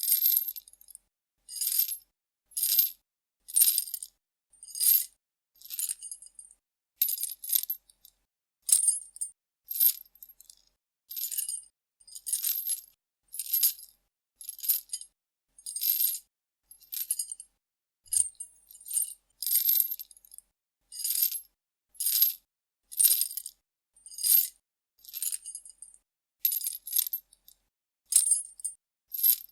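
Metal chain shaken and rattled in short jingling bursts, about one a second with brief pauses between, the sound all bright and high with no low end.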